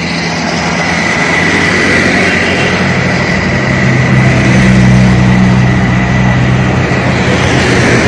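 Road traffic going by close at hand. A vehicle engine's low hum grows louder from about three seconds in and fades near the end.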